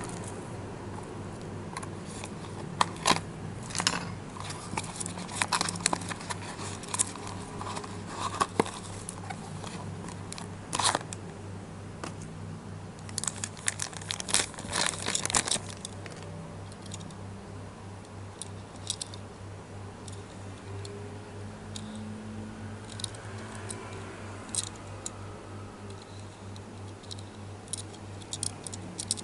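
Unboxing a die-cast toy car: a cardboard box is opened and handled, then the model's clear plastic bag is crinkled and peeled off. Scattered sharp crackles give way to a dense run of crinkling about halfway through, then a few light ticks.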